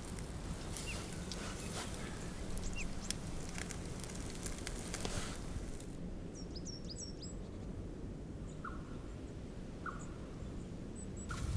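Campfire crackling over a steady low rush. About six seconds in the sound changes, and a small bird gives a quick run of high chirps, with a few more single notes later.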